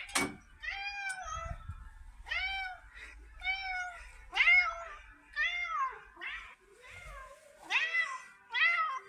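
A door latch clicks, then a domestic red tabby cat meows about ten times in quick succession, each call a short rise and fall in pitch. She is a very vocal cat greeting her owner when he comes home.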